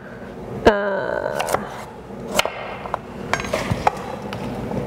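Chef's knife slicing carrots on a wooden cutting board: a scattered, irregular series of sharp knocks as the blade hits the board.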